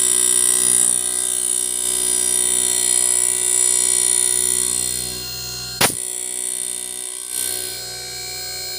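LG 2.5 HP split inverter air conditioner's compressor running at speed on a newly replaced IPM (inverter power module), a steady hum of several fixed tones with a high-pitched whine over it. A single sharp click about six seconds in; it runs a little quieter from about five seconds on.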